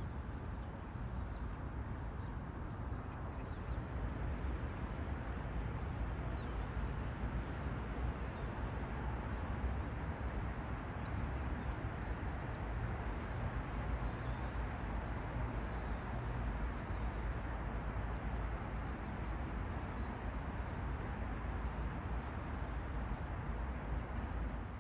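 Steady outdoor background rumble with small birds chirping now and then.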